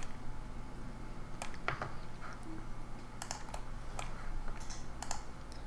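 Computer keyboard keys tapped in scattered, irregular clicks over a faint steady low hum.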